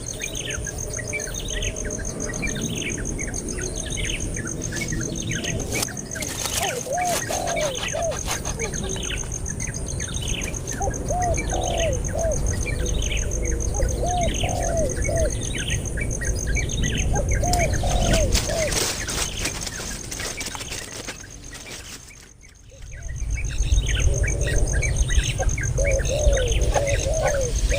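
Baby birds chirping: a steady run of high falling chirps about two a second, with lower squeaky calls coming in short clusters every few seconds. Short stretches of scuffling noise come about six seconds in and again around eighteen seconds.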